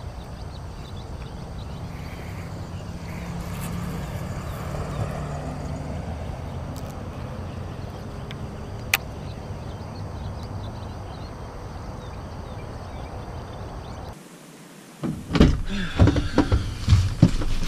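A steady low rumble with a single sharp click about nine seconds in. After a short drop in level, a run of loud, irregular knocks and thuds inside a vehicle cabin over the last couple of seconds.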